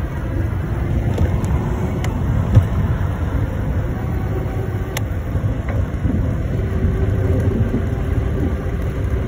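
Wind buffeting the handlebar-mounted phone's microphone and tyre rumble from an e-bike rolling along asphalt, with a few faint clicks. A faint steady hum comes in about two-thirds of the way through.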